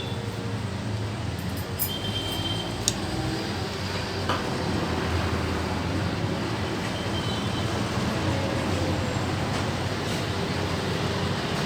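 Steady low rumble of passing vehicles, with a few sharp clicks about two to four seconds in.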